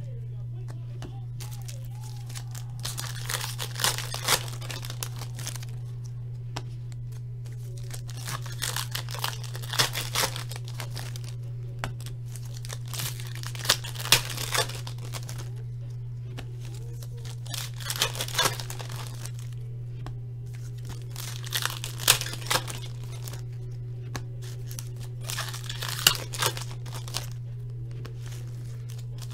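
Foil wrappers of hockey card packs being torn open and crinkled in short bursts every few seconds, with cards being handled in between, over a steady low hum.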